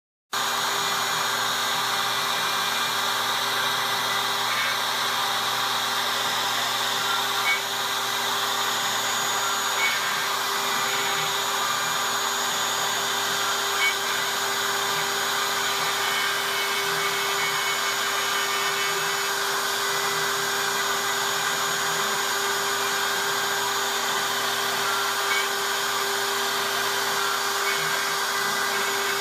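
CNC Shark HD 2.0's router spindle running at a steady high speed while a small bit carves letters into a fibreboard blank. The sound starts suddenly just after the beginning and holds level, with a few faint ticks along the way.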